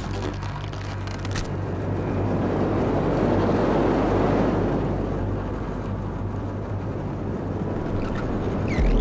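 Rushing ambient noise that swells to a peak midway and eases off again, over a steady low hum; a deeper hum comes in near the end.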